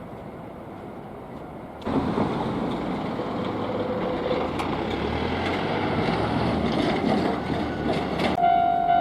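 Hankyu train passing over a level crossing: a loud steady rush of wheel and running noise that starts abruptly about two seconds in. Near the end a level-crossing warning bell starts ringing, a repeating two-tone clang.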